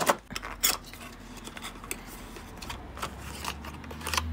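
Plastic and cardboard packaging being handled: a clear plastic box and its cardboard insert pulled apart, giving a scattering of sharp clicks and scrapes over a low hum.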